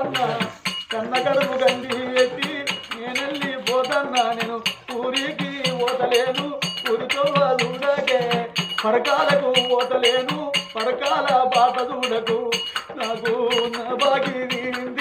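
Oggu katha folk singing: a singer draws out long sung lines with bending pitch, over a steady rhythm of sharp metallic clicks from small hand cymbals, about three a second.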